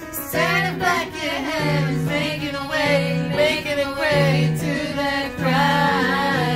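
A woman singing karaoke into a handheld microphone over a music backing track with a repeating bass line.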